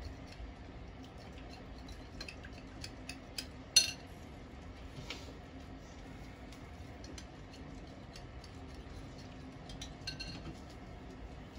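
A utensil stirring in a glass bowl, clinking and scraping against the glass in a run of small light ticks. One sharper clink comes about four seconds in.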